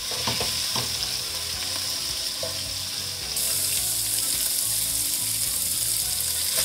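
Marinated chicken pieces sizzling in hot oil in a frying pan, a steady hiss that grows louder about three seconds in, with a couple of light utensil clicks in the first second.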